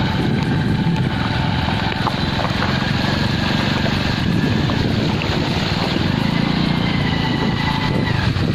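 Steady wind buffeting the microphone over a low motor drone.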